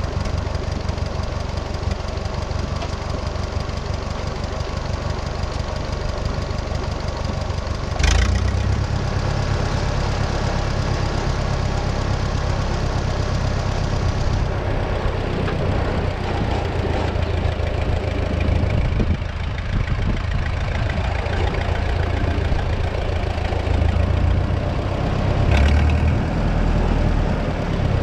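Case 400 tractor's gasoline engine running steadily while the front loader is worked to lift a log. About eight seconds in there is a sharp knock, and the engine's low note grows stronger from then on; a second, shorter knock comes near the end.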